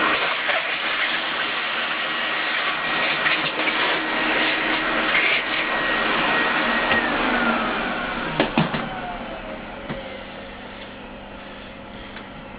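A motor-driven machine, like a workshop vacuum, running steadily with a whine, then switched off about seven seconds in and spinning down, its whine falling in pitch as the noise dies away. A few sharp clicks come during the spin-down.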